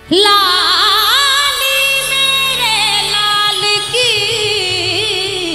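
Devotional bhajan music: a high, wordless sung phrase (an alaap) that starts suddenly and swoops and wavers in pitch with heavy ornamentation, over a soft steady drone. A light rhythmic pulse comes in about halfway through.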